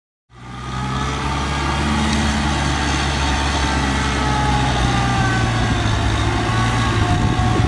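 Tractor engine running steadily while working a flooded rice paddy: a steady low drone with a fainter whine above it, fading in after a moment of silence at the start.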